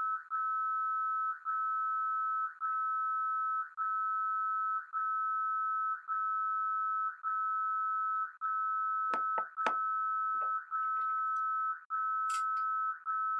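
Digital alarm clock's alarm sounding: a steady high beep about a second long, repeating with short breaks. About two-thirds of the way in come three sharp knocks, and near the end a brief hiss.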